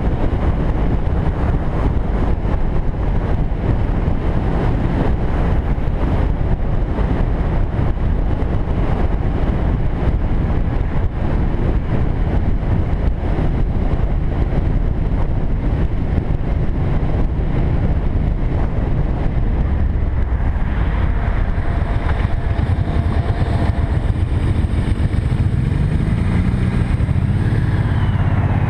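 Cruiser motorcycle riding at road speed: the engine runs steadily under heavy wind rush on the microphone. Near the end the engine note changes pitch as the bike slows behind traffic.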